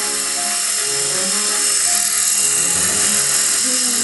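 Mini radio-controlled indoor helicopter flying: its small electric motor and rotors give a steady high-pitched whir, with music playing underneath.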